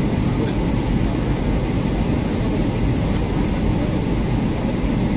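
Steady cabin noise inside a Boeing 757-200 in flight: the even, low roar of its jet engines and the airflow past the fuselage, heard from a seat by the wing.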